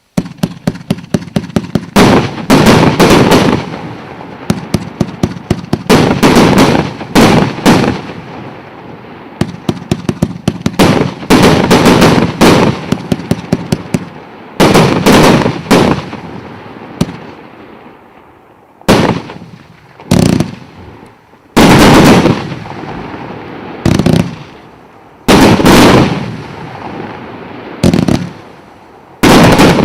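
A consumer fireworks battery ('Armageddon' salute cake) firing. Fast runs of short pops, several a second, alternate with loud, long bursts, and in the second half these give way to single big bursts about every two seconds.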